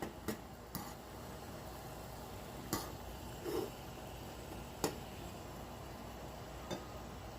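Steady low room hum with a handful of light, sharp clicks and taps, spaced irregularly.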